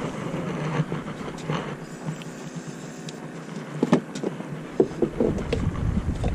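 A steady low mechanical hum, with a few short knocks and clatters about four to five seconds in.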